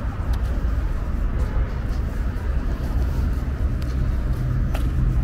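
Outdoor city street ambience: a steady low rumble of traffic, with a few faint clicks.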